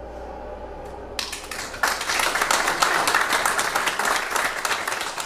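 Congregation applauding after a gospel song. The applause starts about a second in, after the last held chord of the accompaniment fades, and is at its fullest for a few seconds before thinning near the end.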